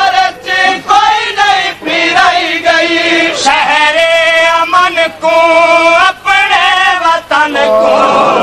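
Noha, a Shia lament, chanted by sung voices in long, wavering held notes broken by short breaths.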